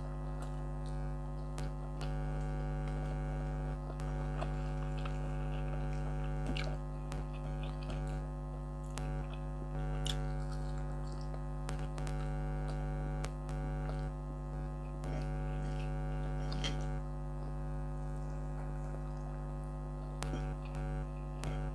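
Room air conditioner running with a steady hum made of several steady tones. Over it come the close-up wet chewing and mouth clicks of someone eating rice and fried fish.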